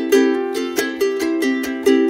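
Background music on a plucked string instrument, a quick run of even notes at about four to five a second.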